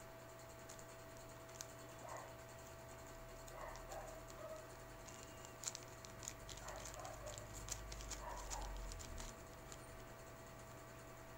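Small scissors snipping and a thin black plastic mailer bag crinkling as it is cut open, faint, with a cluster of sharp clicks and rustles in the middle.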